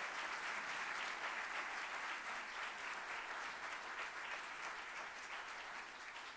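Conference audience applauding, the clapping slowly dying away.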